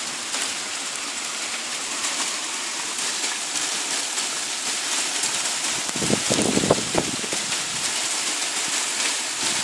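Hail falling hard on paving flags and tarmac: a dense, steady hiss of countless tiny ticks. A brief low rumble cuts through about six seconds in.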